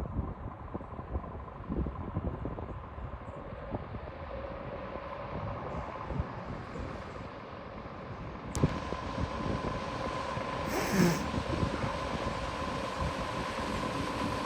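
A vehicle running nearby, with wind buffeting the microphone. Partway through there is a sharp click, after which a steady hum carries on.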